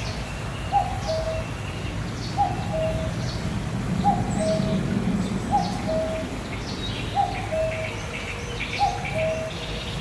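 Common cuckoo calling its two-note "cuck-oo", a higher note falling to a lower one, repeated six times about every one and a half seconds, with faint chirps of other small birds behind it.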